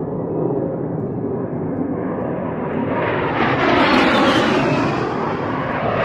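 An aircraft flying low past at an air show. Its engine noise swells from about halfway through and sweeps down in pitch as it goes by, with a high whine falling away. A second pass starts building near the end.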